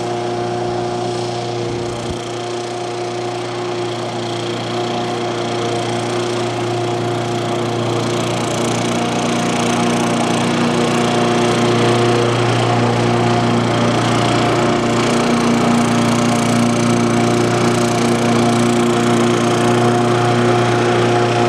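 Remote-controlled lawnmower running steadily with an even, droning hum, growing a little louder from about eight seconds in.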